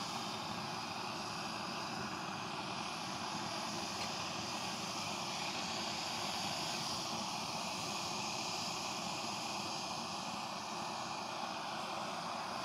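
Portable gas canister camping stove burning under a pot, its burner giving a steady hissing roar.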